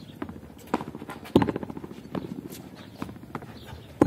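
Frontón rally with a tennis ball: sharp smacks of the ball being hit and rebounding off the wall, coming irregularly about every half second to a second. The loudest smacks come about a second and a half in and at the very end.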